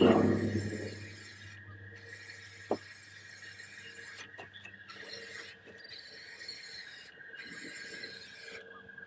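Aerosol spray paint can hissing in repeated bursts, with short breaks each time the nozzle is let go, as it coats a metal chair. A louder low sound at the very start fades out within about a second.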